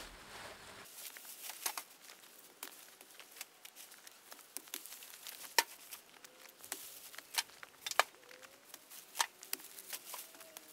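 Cut maize stalks and their dry leaves rustling, crackling and snapping as they are gathered and piled, with sharp snaps at irregular intervals. Faint bird calls come in from about six seconds in.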